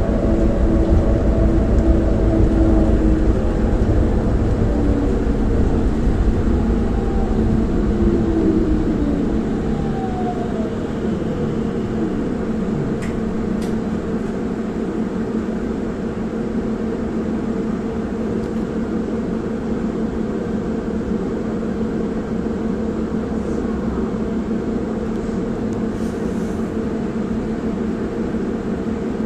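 Tram interior: running noise and a falling electric motor whine as the tram slows to a stop in the first ten seconds, then a steady electrical hum while it stands.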